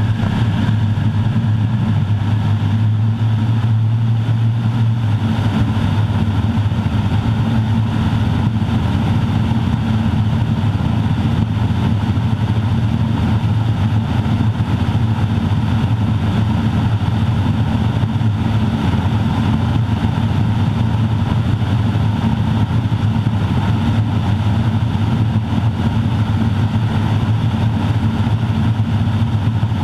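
Garrett TPE331-6 turboprop engine and propeller of a Grumman Ag Cat heard from inside the cockpit in flight: a loud steady drone dominated by a strong low hum, the uncomfortable resonance this airframe produces.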